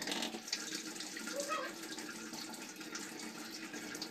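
Tap water running steadily into a sink while a child washes his hands under it.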